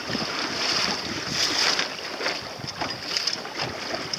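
Water splashing and slapping against the hull of a small sailing dinghy under way, with wind buffeting the microphone; the splashing swells loudest about one and a half seconds in.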